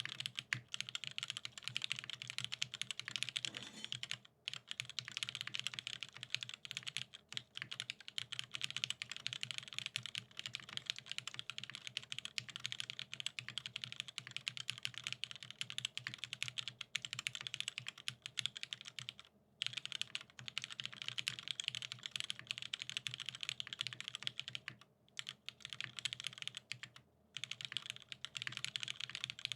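Fast, continuous typing on a computer keyboard: a dense stream of key clicks, broken by a few brief pauses.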